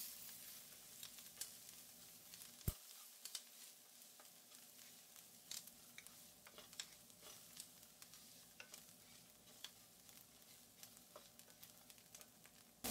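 Faint sizzle of chopped onion and ground spices frying in oil in a nonstick pan, stirred with a wooden spatula, with scattered small ticks and scrapes. One sharper tap comes about three seconds in.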